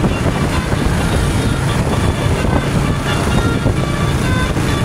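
Heavy, steady low rumble of a tour bus's engine and road noise close by, with faint short high tones over it.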